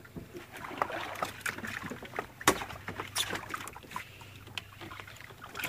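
Small fishing boat's engine idling with a low steady hum, with scattered light clicks and knocks throughout.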